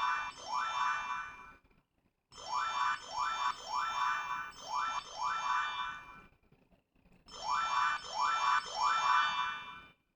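Disney Magical Smart Note toy's speaker playing electronic sound effects: short rising chirps, sounded in three runs of two, four and three, with short gaps between the runs.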